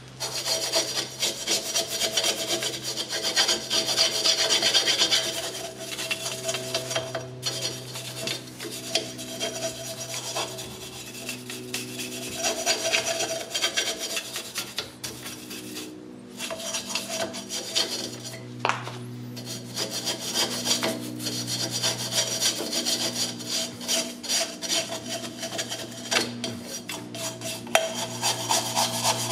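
Wire brush scrubbing rust and grime off a rusty drum-brake backing plate and wheel hub, in quick rasping back-and-forth strokes with a few short breaks, at about 7, 16 and 19 seconds.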